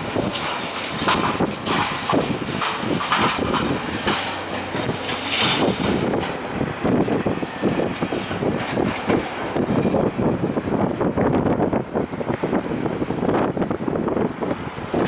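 Demolition of a brick-and-concrete building: masonry and rubble crashing and clattering down in a continuous irregular stream of impacts.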